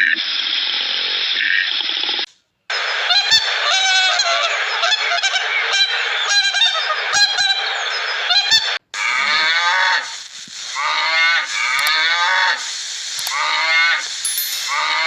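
Many birds calling over one another in quick repeated calls, in three short clips joined by brief cuts to silence; in the last clip the calls bend down in pitch and repeat under a second apart.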